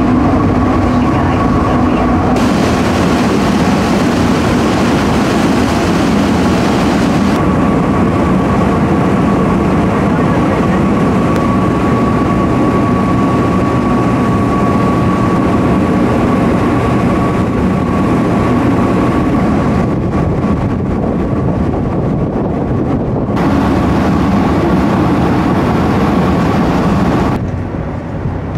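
Tour boat under way: a steady engine drone mixed with the rush of wash and wind, with a thin steady whine running through it. The sound drops somewhat near the end.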